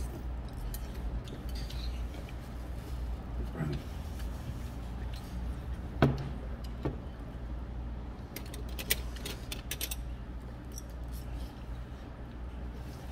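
Eating noises: chopsticks clicking against a bowl of noodles, with a single sharp knock about six seconds in and a run of light clicks a little later, over a steady low hum.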